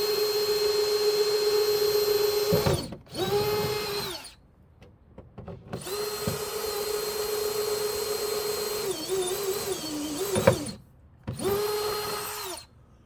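Power drill boring holes through a car door's plastic trim panel and the thin sheet metal behind it: two long runs at steady speed, each followed by a short burst of the trigger as the motor winds down. In the second run the pitch sags as the bit works under load, with a sharp knock about ten seconds in.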